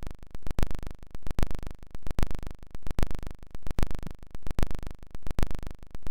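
Handling noise on a camera's microphone: a regular series of knocks and rubs, about two to three a second, as the running camera is jostled.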